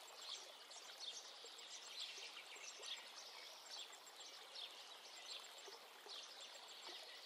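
Very faint nature ambience: a steady water-like hiss with small bird chirps scattered through it.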